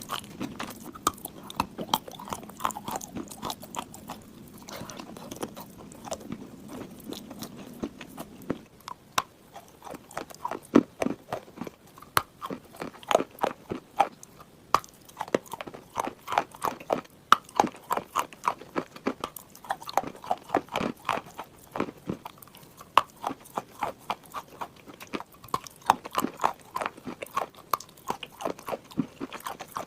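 Dry clay chunks being bitten and chewed close to the microphone: a dense run of sharp, crisp crunches. For the first several seconds the crunches are sparser over a low hum, then they come thick and fast.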